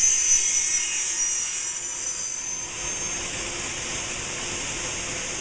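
An aluminium-profile CNC machining and mitre-cutting centre running: a high whine over a steady hiss, loudest in the first second.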